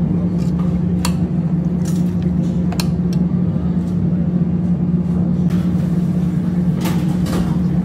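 A steady low mechanical hum, with a few sharp clinks of a metal spoon against a steel cooking pot as meat is added to chopped onions.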